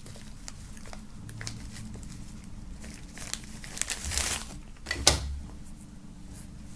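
Rustling and handling noises from a small black cloth drawstring pouch being turned over and opened by hand, with a louder rustle about four seconds in and a sharp click about a second later.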